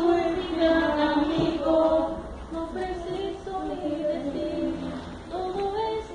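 Women's and children's voices singing a song together.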